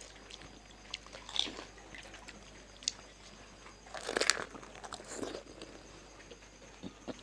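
Crisp fuchka (pani puri) shells being bitten and chewed: scattered small crunches, with a louder burst of crunching about four seconds in.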